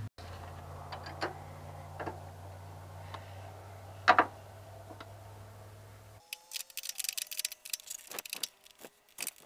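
Ratchet wrench clicking in quick, irregular runs while tightening the nut on a Datsun's idler arm bushings, drawing the new bushings together. A few single metallic clicks come first, under a low steady hum that cuts off about six seconds in.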